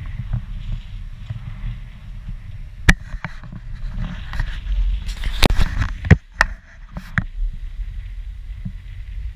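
Wind buffeting an action camera's microphone, a steady low rumble. A few sharp knocks and clicks come about three seconds in and again between five and seven seconds in.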